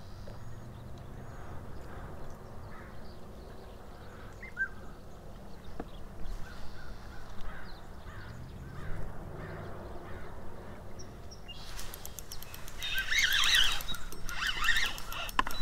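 Outdoor lake-shore ambience with birds calling, crows cawing among them. Near the end comes a louder burst of rapid clicking and scraping close by as the rod and spinning reel are handled.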